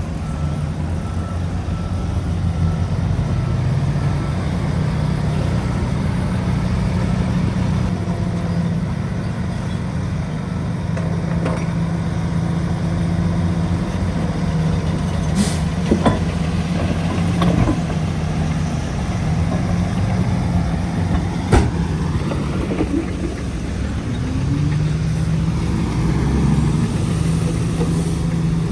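Shantui DH17C3 bulldozer's diesel engine running steadily under work, with a few sharp metallic clanks in the second half.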